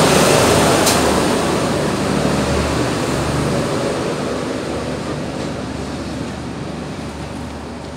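HST rear Class 43 power car, with its VP185 diesel engine, passing close at speed. The train then draws away, its engine and wheel noise fading steadily.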